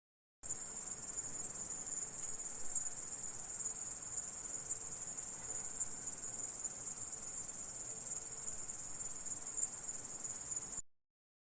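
Grasshopper stridulating: a continuous, steady, high-pitched buzz that starts abruptly just after the beginning and cuts off suddenly near the end.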